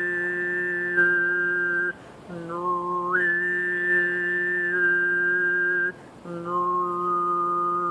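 A man overtone (throat) singing a barbershop polecat tune: a steady low drone with a whistle-like overtone above it that steps from note to note to carry the melody. It breaks off twice for a short breath.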